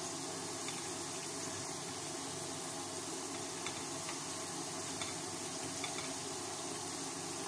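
Potato chunks frying in a shallow layer of hot oil in a pan, a steady sizzle, with a few light clicks of metal tongs against the pan as the pieces are turned.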